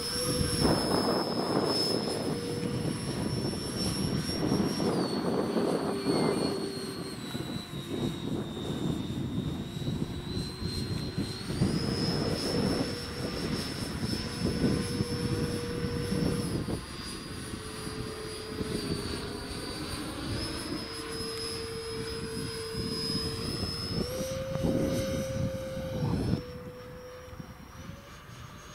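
Electric ducted fan of a radio-controlled model jet whining in flight, its pitch stepping up and down as the throttle is changed, with wind buffeting the microphone. The whine drops in level near the end.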